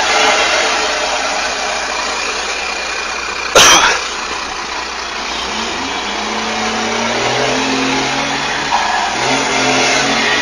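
Heavy road and wind rush from a moving vehicle, with one sharp knock about three and a half seconds in. From about six seconds an engine note climbs as the vehicle accelerates, then holds steady.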